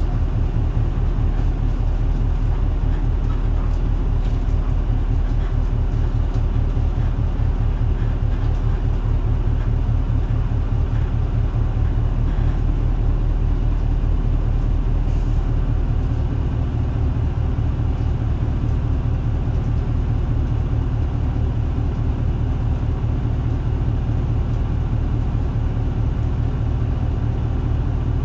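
Isuzu Cubic (KC-LV380L) city bus's V8 diesel engine running at a steady low speed, most likely idling, with an even low-pitched sound and no change in revs.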